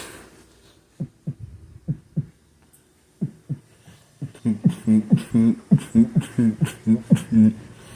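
Beatboxed heartbeat: a mouth imitating a heart's lub-dub, at first soft paired thumps about a second apart, then from about halfway faster and louder, a hummed low tone in each beat, roughly two lub-dubs a second.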